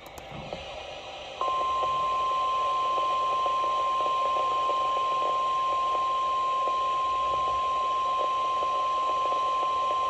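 NOAA Weather Radio warning alarm tone: a single steady tone of about 1050 Hz played through a Midland weather radio's small speaker over radio hiss, starting about a second and a half in and holding for about nine seconds. It is the alert signal that sets off weather-alert receivers, sounded here as the station's weekly test.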